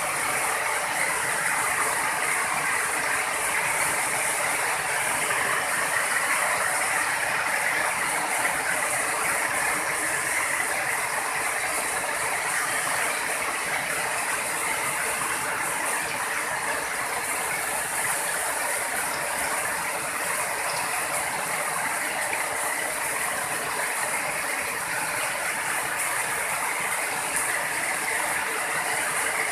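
Heavy rain pouring steadily onto roofs and a flooded lane, an even, unbroken hiss of falling and splashing water.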